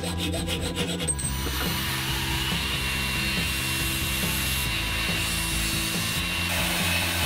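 A hacksaw rasping through a thin metal tube in a vise, stopping about a second in. Then a belt grinder runs steadily as the cut end of the tube is ground against its abrasive belt. Background music plays throughout.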